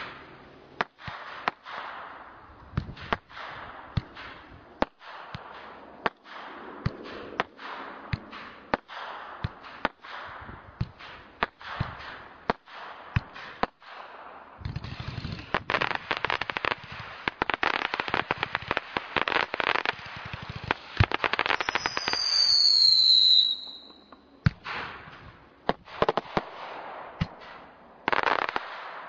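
Brightstar Dynasty firework going off: a string of sharp shots about one a second, then from about halfway a dense run of rapid pops lasting several seconds with a short high whistle near its end, then a few more shots.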